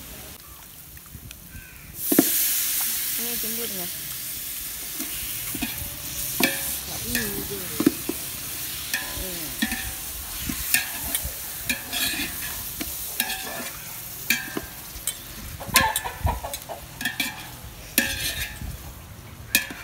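Raw chicken pieces going into hot oil and fried masala in an aluminium pot: a sizzle that rises suddenly about two seconds in and keeps going. Over it come repeated clinks and scrapes of a metal slotted ladle stirring against the pot.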